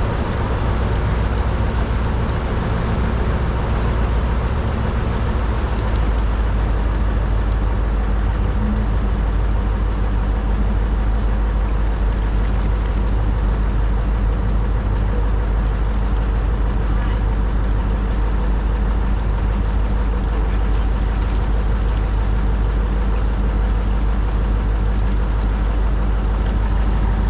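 Canal tour boat's engine running steadily under way, a constant low engine sound that holds at one pitch.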